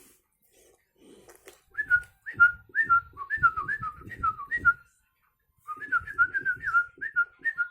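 A rapid run of short, clear whistled notes, each sliding down in pitch, in two bouts about a second apart, over soft low rustles and thumps.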